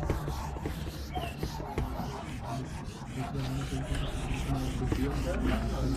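Hand-held board duster scrubbing a whiteboard clean in quick back-and-forth strokes, a steady rubbing rasp.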